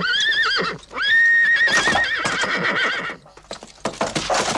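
Cartoon horse whinnying twice in a high, wavering pitch as it is spurred, followed near the end by a brief noisy clatter.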